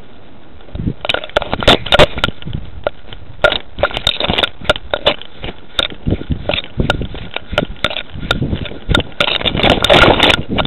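Collar-mounted cat camera knocking and scraping as the cat moves and climbs. After about a second of steady hiss comes a fast, irregular clatter of sharp knocks and rubbing.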